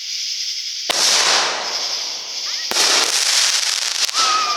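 Consumer fireworks going off: three sharp bangs, each followed by a spray of crackling, with a falling whistle-like tone near the end.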